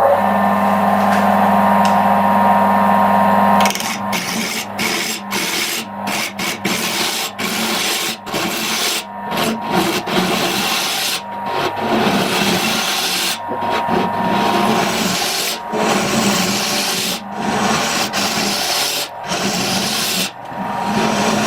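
A woodworking power tool's motor hums steadily for the first few seconds. Then wood is worked in irregular rubbing, rasping strokes with short breaks between them, over a fainter motor hum.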